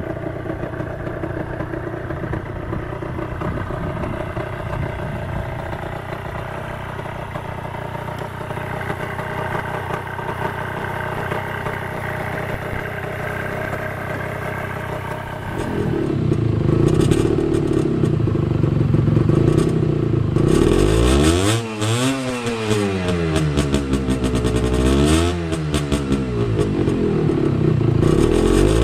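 Aprilia Classic 50's 50 cc two-stroke engine running steadily through its exhaust. About halfway through it gets louder and is revved again and again, the pitch rising and falling with a crackly rasp.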